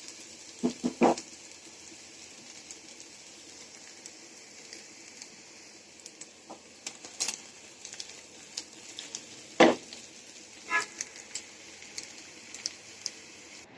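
Cauliflower and potato bhaji sizzling faintly in a frying pan, with a few knocks and clatters: two about a second in, and the loudest two near the tenth and eleventh seconds.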